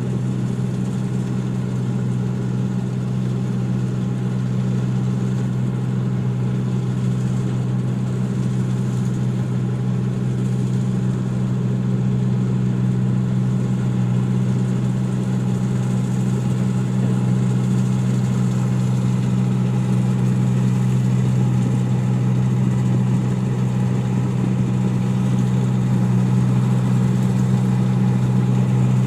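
Engine of a rice machine running steadily: an even, unbroken drone with a strong low hum, growing slightly louder over the stretch.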